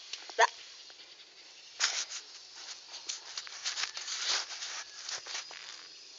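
Pet dog: a brief, sharp squeak about half a second in, then a stretch of scratchy rustling and pattering clicks.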